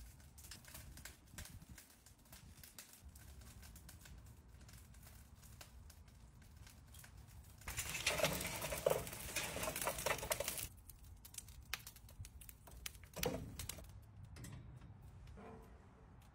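Faint ticking and pattering as seasoning is sprinkled onto bacon-wrapped chicken pieces on a wire rack. About eight seconds in comes roughly three seconds of loud rushing, crackling noise as glowing charcoal is tipped out of a chimney starter in a shower of sparks. A few short knocks follow.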